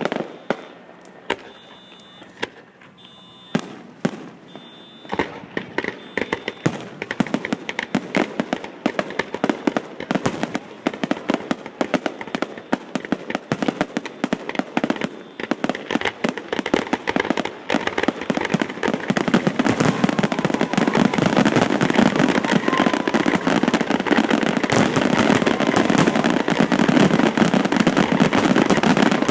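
Aerial fireworks display: a few separate bangs at first, then quick reports coming ever faster until they merge into a dense, continuous crackle that is loudest in the last ten seconds.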